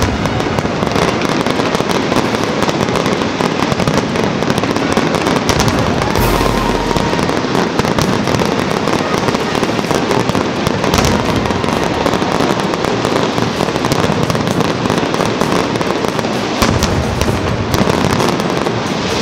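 Dense fireworks barrage: a continuous crackling and popping of many shells and fountains going off at once, loud and unbroken, with a few sharper cracks standing out.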